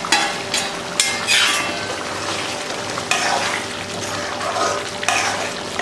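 A steel ladle stirring and scraping through thick curry gravy in a metal kadai, in several irregular strokes, over the steady bubbling sizzle of the gravy simmering on the stove.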